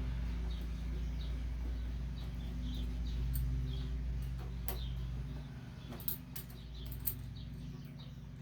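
A steady low hum with faint, short squeaking chirps. From about halfway through come a few sharp metallic clicks of hand tools working the bolts of a mower's air filter collar.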